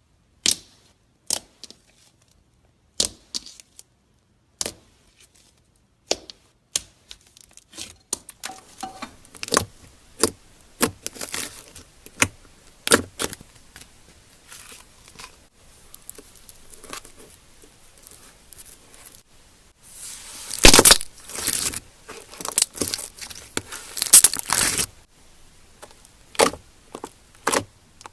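Slime being pressed, stretched and mixed by hand, giving sharp sticky pops and clicks. Single pops a second or so apart at first, then a denser run of crackling pops, loudest a little past the middle.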